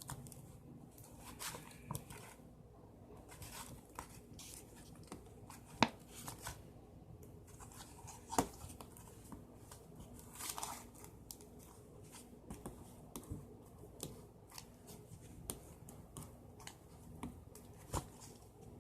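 Homemade glue slime being kneaded by hand: faint, irregular sticky clicks, snaps and tearing sounds as it pulls and folds, with a sharper snap about six seconds in and another about eight seconds in.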